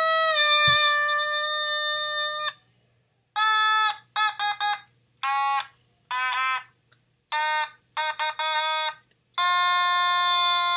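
Otamatone, an electronic toy synthesizer, playing buzzy notes. A held note stops about two and a half seconds in, then comes a run of short notes with silences between them, several with a 'wah' as the mouth is squeezed, and another held note near the end.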